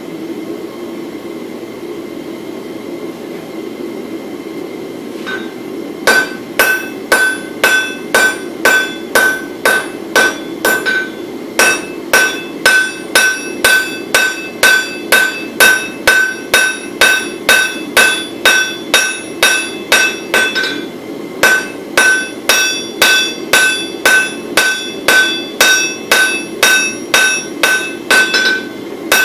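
Hand hammer forging a red-hot wootz steel bar on an anvil, about two ringing blows a second with two short pauses. The hammering starts about six seconds in, over a steady hum.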